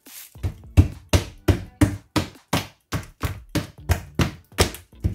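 A hand patting and pressing down the snap-on lid of a plastic tub: an even run of sharp thunks, about three a second.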